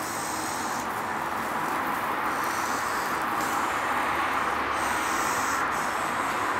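A steady rushing hiss that grows slowly louder.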